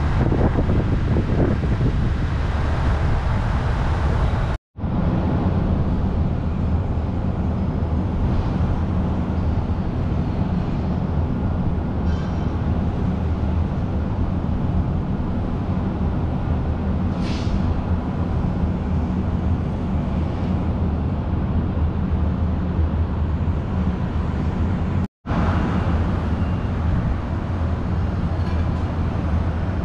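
Steady vehicle and road noise: a continuous low rumble with a hiss on top, broken twice by a split-second gap of silence.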